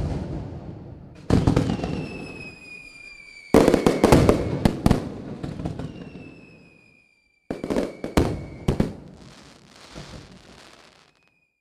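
Aerial fireworks going off: a series of loud sudden bangs, each fading away over a second or two with crackling, several in quick succession in the second half.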